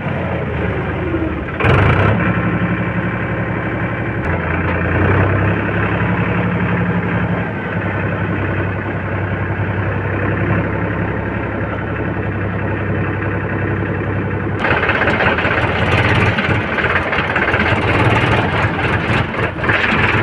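Diesel engine of working heavy machinery running steadily, with a short loud burst about two seconds in. The engine picks up about four seconds in and turns louder and rougher from about fourteen seconds.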